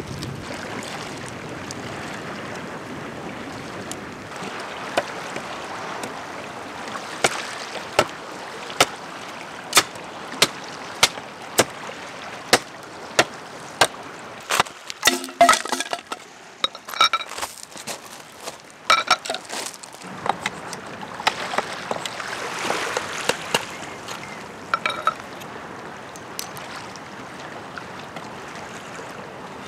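Hatchet chopping into a wooden stake: a steady run of sharp wooden knocks, about two a second, then scattered knocks and scraping as the hatchet shapes a wooden board. Under it all a steady hiss of wind and waves on the shore.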